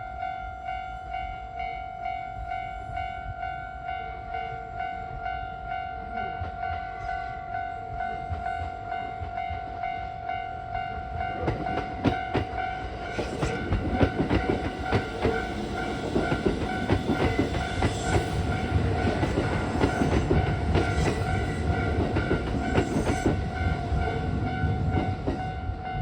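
A Japanese level-crossing alarm rings throughout, its repeated electronic tone pulsing in a steady rhythm. From about 11 seconds in, a Kintetsu electric train rumbles over the crossing, its wheels clattering over the rail joints, and the rumble drowns much of the alarm.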